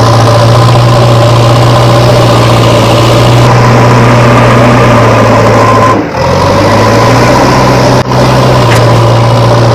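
Steady engine idling of a heavy vehicle such as a truck or JCB, a low even hum, broken briefly twice, about six and eight seconds in.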